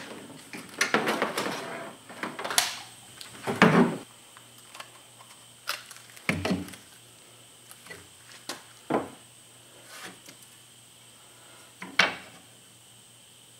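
Handling noises as a hard black plastic mount is picked up and set down on a wooden plank: a rattling shuffle near the start, then a few separate knocks and clunks, the heaviest about four seconds in.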